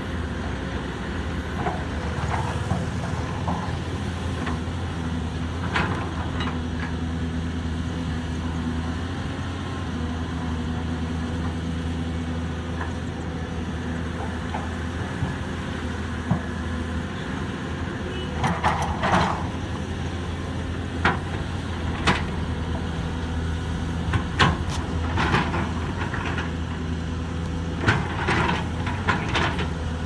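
Diesel engine of a Caterpillar 320D hydraulic excavator running steadily under load while it loads soil into a dump truck. From about 18 seconds in, a series of sharp clanks and knocks comes from the bucket and the load.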